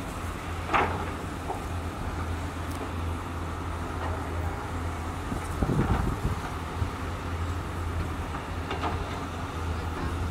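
Diesel engines of working hydraulic excavators, a steady low drone, with a knock about a second in and a few more around the middle.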